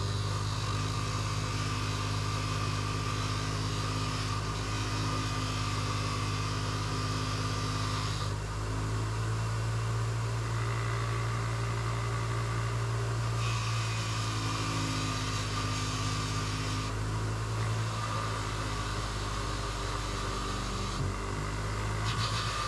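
An electric tool motor running with a steady hum while carbon is scrubbed off an engine valve. A scratchy hiss comes and goes every few seconds, dropping out at about 8, 17 and 21 seconds in and returning between.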